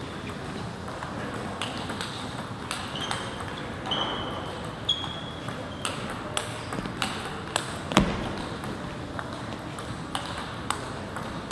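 Table tennis rally: the celluloid ball clicking off paddles and the table about twice a second, irregularly, with the sharpest knock about eight seconds in. A few short high squeaks come in the first half.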